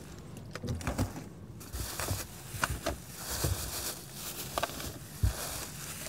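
Plastic water bottles and packaged food being packed into an insulated cooler bag, with irregular soft knocks and rustling.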